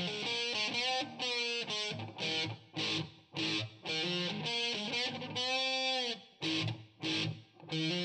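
Electric guitar, a Fender Blacktop HH Stratocaster with humbucking pickups, played through a Marshall amp: short riffs broken by brief pauses, with a held note bent up and back down a little past the middle.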